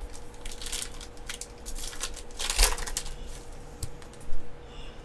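Yu-Gi-Oh trading cards handled and flipped through by hand: a series of short sliding, rustling swishes with a couple of sharp taps. A faint steady hum runs underneath.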